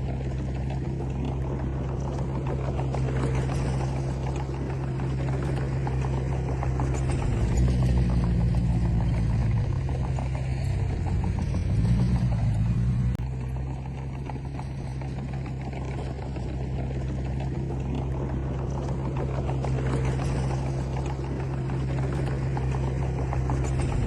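Komatsu D20P bulldozer's diesel engine running steadily under work. From about seven seconds in it grows louder and its pitch wavers up and down as the load changes, then drops back suddenly near the middle and settles to its steady note.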